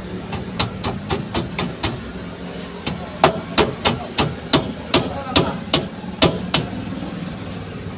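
Hammer striking metal, about twenty sharp blows at roughly two to three a second, over a steady low engine hum.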